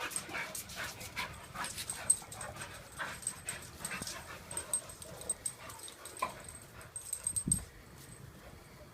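A dog playing: short yips and whimpers among quick clicks and knocks, with a heavier thump about seven and a half seconds in.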